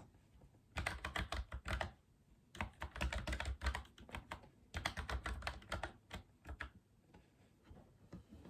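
Typing on a Logitech MX Mechanical Mini for Mac mechanical keyboard: three quick runs of key clicks with short pauses between them, thinning to a few scattered keystrokes near the end.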